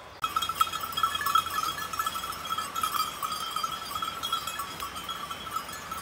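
Bells on a walking flock of sheep clanking continuously, many small strikes overlapping into a steady jangle. It starts abruptly just after the start.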